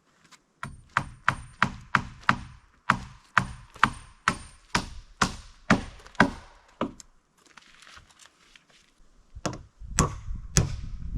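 A hammer driving nails into wooden boards: a steady run of about fifteen blows, two to three a second, then a pause and a few more blows near the end.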